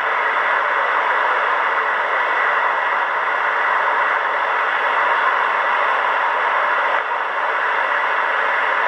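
Kenwood R-5000 shortwave receiver's loudspeaker giving steady band noise, a loud hiss of static, on an open channel. No station is transmitting, because the call handed over has gone unanswered.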